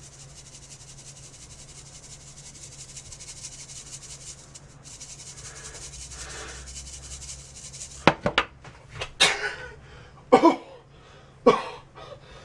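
Dried jalapeño powder rubbing and rustling against the wire mesh of a fine-mesh sieve as it is shaken by hand, for about eight seconds. Then several sharp coughs, set off by the hot chili dust.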